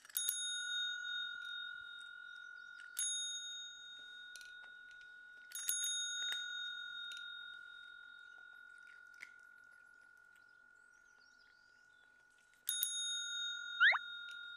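Chrome desk service bell pressed by a cat's paw, ringing four times: at the start, about three seconds in, about five and a half seconds in, and near the end. Each ring is one clear high tone that fades slowly. A short rising squeak sounds just before the end.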